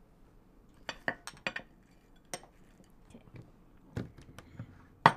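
Tableware clinking: small dishes set down on a plate and utensils knocking against bowls, a scatter of sharp clinks with a cluster about a second in and the loudest near the end.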